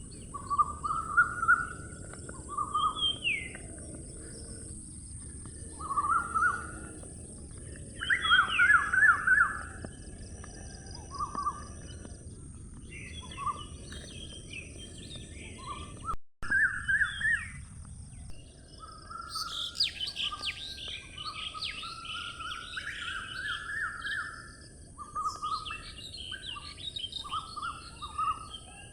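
Several birds chirping and singing in short repeated phrases over a steady high hiss, with a brief break about halfway through.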